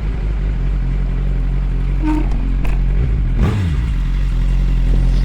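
A motor vehicle engine running steadily at idle, with a falling engine note about three and a half seconds in, like a vehicle passing.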